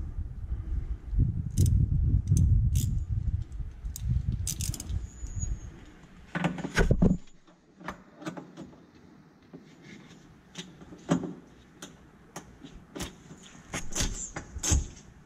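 Metallic clicking and clinking of a ratcheting box-end wrench and hardware while a golf cart's rear shock mounting nut is tightened, with a low rumble of handling noise through the first half. In the second half the clicks come one by one at an uneven pace.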